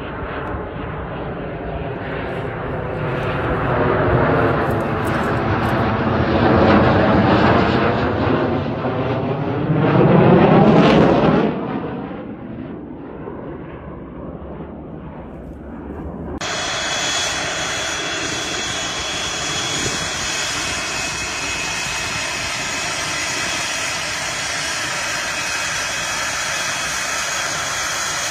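A US Marine Corps F/A-18 Hornet's twin jet engines as the fighter flies past low on approach. The noise swells to a peak about ten seconds in, sweeping in pitch as the jet passes, then fades. From about sixteen seconds in, a Hornet's engines run steadily as it taxis.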